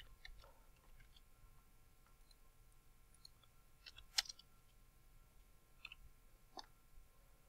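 Faint, scattered computer keyboard and mouse clicks, a handful over several seconds, the clearest about four seconds in, against near silence.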